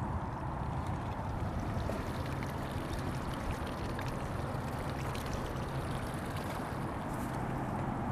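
Steady low rumble of a small fishing boat on the river, with water sounds around the hull.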